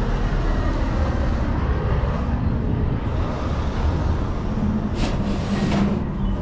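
Semi-truck's diesel engine running, a steady low rumble, with a couple of brief rustles or knocks about five seconds in.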